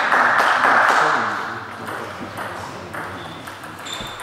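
Spectators applauding after a point, fading out over the first second and a half, with a few voices. Near the end a celluloid table tennis ball bounces twice on the table with short high pings.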